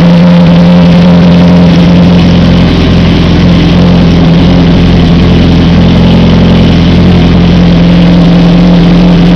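Honda CBR600RR inline-four engine idling steadily through an aftermarket Jardine exhaust, loud and even, on its second start after two bent exhaust valves were replaced.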